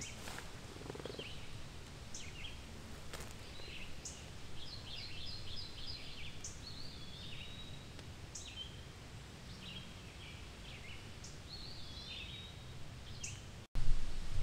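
Songbirds chirping and calling in short, repeated notes with a quick trill in the middle, over a low steady outdoor rumble. Near the end the sound drops out for an instant and the low rumble comes back louder.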